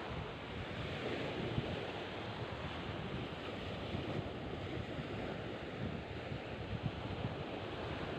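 Surf washing steadily on a beach, with wind buffeting the microphone.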